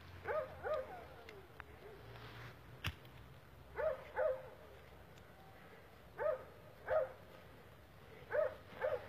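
A dog barking in double barks, four pairs of short barks every two to three seconds. There is a single sharp click about three seconds in.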